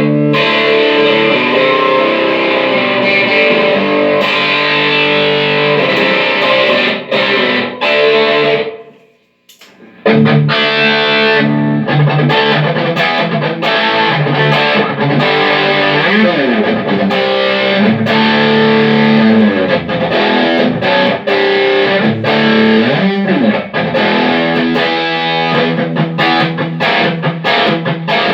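Electric guitar played through a Line 6 HD500X multi-effects processor, with effected, partly distorted tone and some string bends, as a sound test of the repaired unit. The sound fades out for about a second roughly a third of the way in, then the playing resumes.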